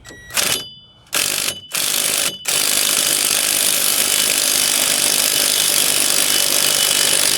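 Ryobi impact tool hammering on a seized, rusted bolt: three short bursts, then one long continuous run with a high motor whine over the rapid hammering. The bolt does not break loose and the tool is struggling.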